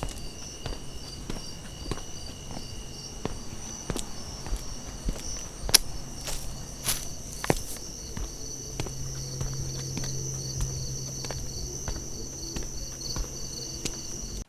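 Footsteps walking at an unhurried, uneven pace, over a steady high chirping of night insects.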